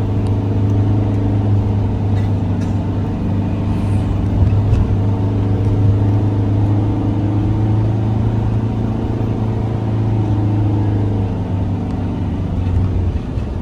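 Car engine running steadily with road noise: a continuous low drone whose pitch drifts slightly.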